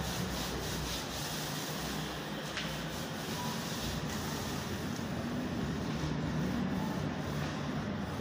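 Steady rustling and rubbing noise from a handheld phone being carried around, picked up by its own microphone.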